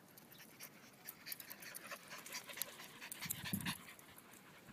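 Dog panting close by, with a quick run of short clicks and scuffs.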